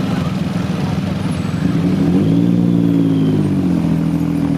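Many motorcycle engines running together as a parade of bikes rides past at low speed. About two seconds in, one engine's note rises as a bike accelerates, holds, then eases off.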